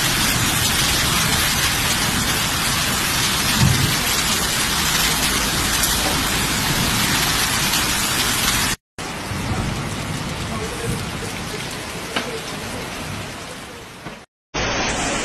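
Torrential rain and strong storm wind making a loud, steady wash of noise. It breaks off suddenly about nine seconds in, starts again and slowly fades, then cuts out shortly before the end.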